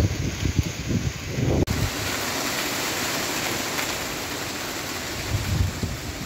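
Gusty storm wind buffeting the microphone in uneven low rumbles. After a cut about two seconds in comes a steady hiss of wind and rain, with another gust rumbling on the microphone near the end.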